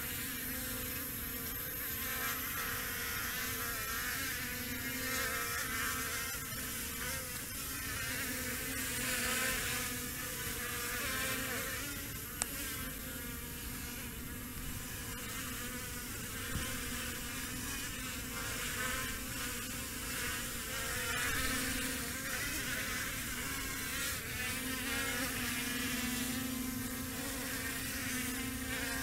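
DJI Matrice 100 quadcopter's propellers running in flight: a steady, insect-like buzz that swells and eases a little as it moves. A single sharp click about twelve seconds in.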